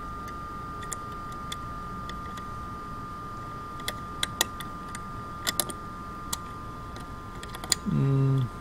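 Light plastic clicks and taps as fingers work a small part in the sample compartment of a Bio-Rad SmartSpec Plus spectrophotometer, over a steady high hum. Near the end comes a brief, louder low voice-like sound, falling slightly in pitch.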